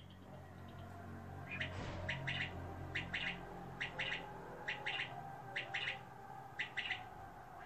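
Chinese painted quail chirping: short high chirps in quick pairs and triples, repeating about once a second, with a low hum underneath in the first few seconds.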